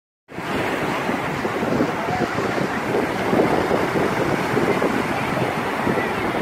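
Surf washing onto the beach in small breaking waves, with wind buffeting the phone's microphone.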